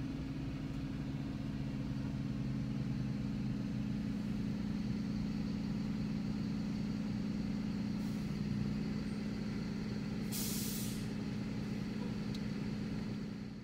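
Steady engine idle heard from inside a car, with school buses idling close by. About ten seconds in comes one short hiss, typical of a school bus's air brakes releasing air.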